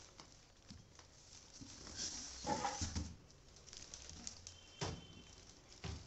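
Polythene wrapping crinkling and rustling in a few irregular bursts, with a dull knock about two and a half seconds in, as a microwave oven is lifted out of its cardboard carton by the plastic bag.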